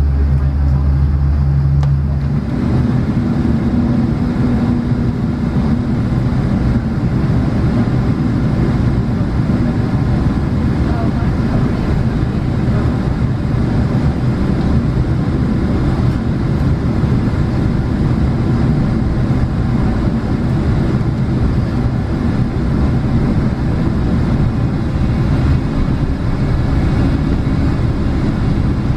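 Cabin noise of a Boeing 777 taxiing: a steady low hum gives way about two seconds in to an even, rough rumble as the airliner rolls along the concrete taxiway with its engines at low thrust.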